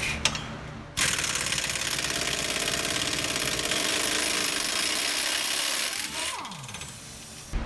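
Impact wrench hammering on the 15 mm track bar bolt at the axle: a steady rapid rattle starting about a second in and running about five seconds, then spinning down with a falling whine near the end.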